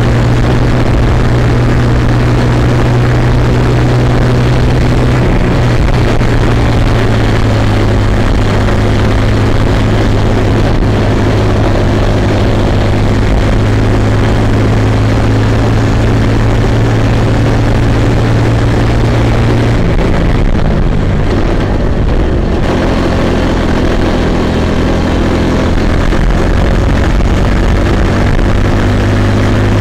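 Kid kart's small engine running at racing speed, heard close up from on board with a steady high engine note. About twenty seconds in the note drops for two or three seconds, then comes back up.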